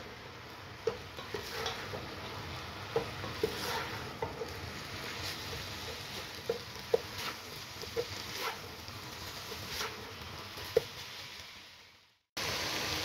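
Chicken mince with onions and spices sizzling as it fries in a non-stick pan, with a spatula clicking and scraping against the pan every second or so as it is stirred. The sound fades out near the end, breaks off briefly, then a steady sizzle starts up again.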